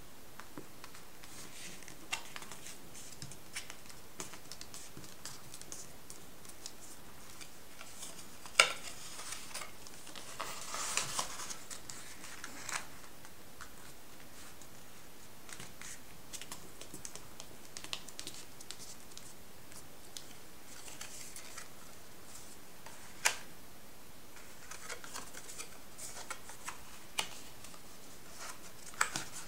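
A square of stiff drawing-block paper being folded and creased by hand on a tabletop: scattered soft taps and clicks with short bursts of rustling, two sharper taps standing out, one about a third of the way in and one about three-quarters of the way in.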